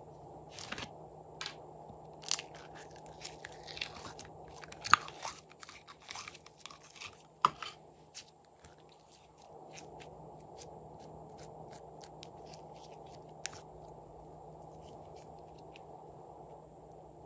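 Glossy glitter slime being squeezed and stretched by hand, giving a run of sharp sticky clicks and pops that is busiest in the first half, then thins to an occasional click over a faint steady hiss.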